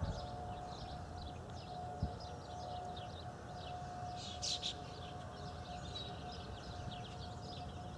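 Faint outdoor warning siren holding one steady tone, with birds chirping over it.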